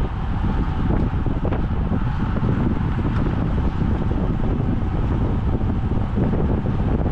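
Heavy wind buffeting on a bicycle-mounted camera's microphone, a steady low rumble from riding at about 55 km/h in a racing pack.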